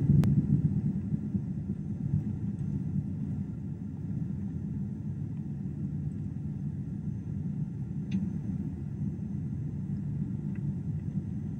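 Airliner cabin noise inside a Boeing 767-400 on final approach: a steady low rumble of engines and airflow that eases over the first few seconds and then holds level. A single faint click sounds just after the start.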